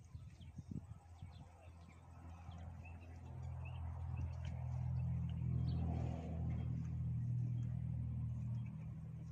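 Low engine hum of a passing motor vehicle, swelling a few seconds in, loudest midway and easing near the end. Faint bird chirps and small clicks sound alongside.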